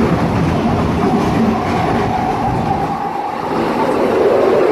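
London Underground tube train running, heard from inside the carriage: a very noisy, steady rumble and rattle, with a whine in it that drops lower in pitch near the end.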